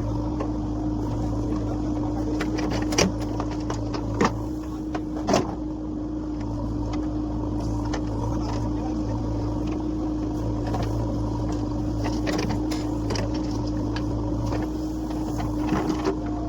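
Diesel engine of a JCB backhoe loader running steadily while it loads mud, with a few sharp knocks about three, four and five seconds in and a quick run of them near the end.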